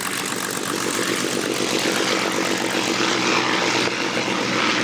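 Several Supermarine Spitfires' piston engines running as the fighters taxi, a steady propeller drone growing slowly louder.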